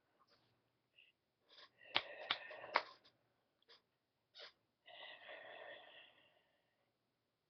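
A man's faint, breathy voice sounds. A cluster of sharp clicks comes about two seconds in, and a longer breathy sound about five seconds in.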